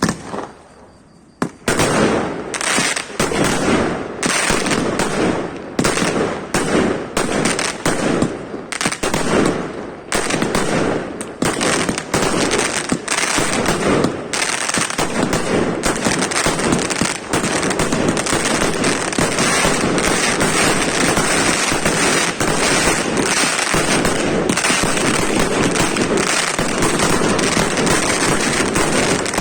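Fireworks display: a single bang, then from about a second and a half in a rapid barrage of explosions. The bangs pack closer and closer until, in the second half, they run together into an almost unbroken crackling volley.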